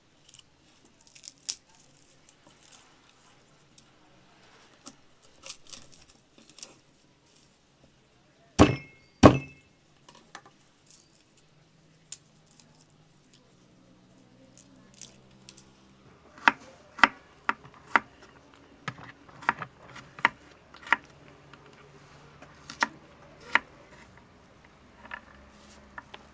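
Garlic cloves being peeled by hand over a wooden cutting board: light scattered clicks and crackles of skins and cloves, with two loud knocks on the board a little before the middle. In the second half comes a run of sharp, irregular taps on the wooden board as the garlic is handled and cut with a knife.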